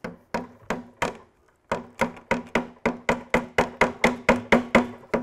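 Small hammer tapping the end of a screwdriver that is wedged between a heater box's fiberglass case and its metal backing plate, driving it in to lift the edge. The taps are sharp and each rings briefly. Four come at first, then a short pause, then a steady run of about four a second.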